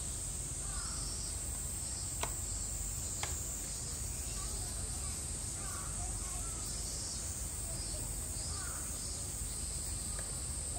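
Steady high-pitched drone of a summer cicada chorus, with a pulsing song a little lower, two sharp clicks about two and three seconds in, and a few faint distant calls.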